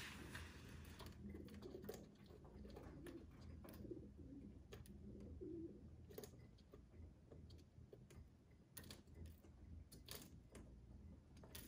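Feral pigeons feeding on a window ledge, heard faintly through the glass: soft low cooing from the flock in the first half, with scattered sharp taps of beaks pecking seed off the ledge.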